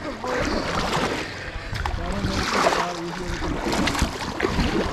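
Kayak paddles dipping and splashing in river water with each stroke.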